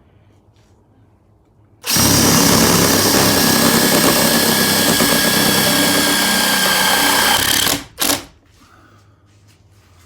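Cordless drill driving a self-drilling tek screw into the roller-door motor's mounting bracket. It runs steadily for about six seconds, stops, then gives one short final burst.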